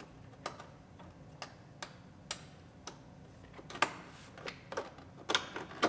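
Plastic interior kick panel trim being handled and pushed into place: a dozen or so light, irregular clicks and taps, more of them in the last couple of seconds.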